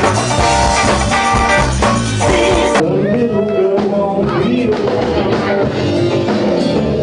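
Live band music with singing. About three seconds in it cuts abruptly to a different, duller-sounding live recording of singing over music.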